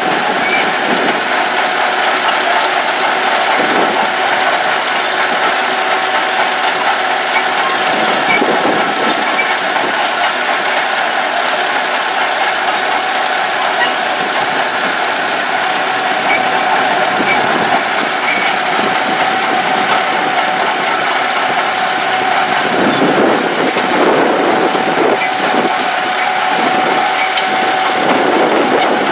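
Caterpillar D7 bulldozer's diesel engine running steadily, with a steady high whine over it.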